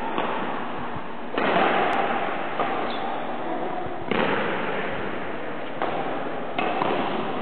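Badminton rackets striking a shuttlecock in a rally: a string of sharp pops about a second or so apart, each echoing in a large sports hall.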